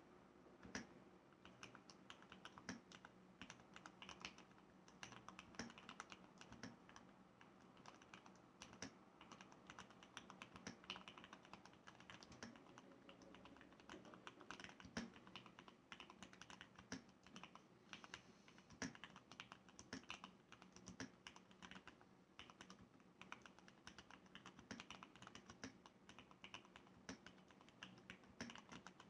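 Continuous typing on a Leopold FC660M mechanical keyboard with lubed Cherry MX Red linear switches and sound-dampening material: quiet, soft keystroke clicks at a steady typing pace, several a second, with a few sharper, louder keystrokes.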